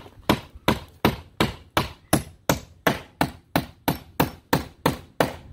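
Claw hammer driving 8-penny vinyl-coated sinker nails by hand through wood lap siding, a steady run of sharp strikes about three a second.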